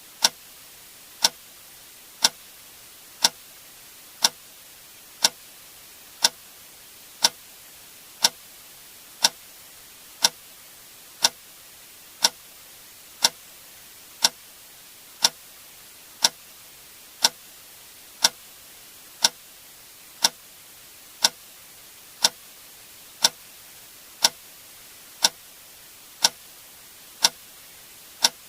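A click sound effect repeating once per second, each click short and sharp, at an even, unchanging pace over a faint steady hiss.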